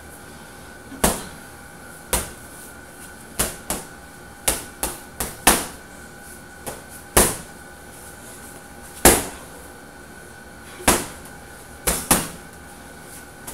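Boxing gloves punching a hanging heavy bag: sharp thuds in irregular runs, some single and some in quick doubles and triples, about a dozen blows.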